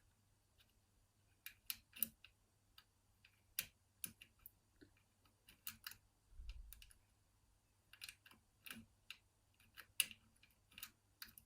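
Faint, irregular metallic clicks and ticks of a piano-wire pick lifting the levers of a 5-lever mortice lock held under tension, with a soft low bump about halfway through.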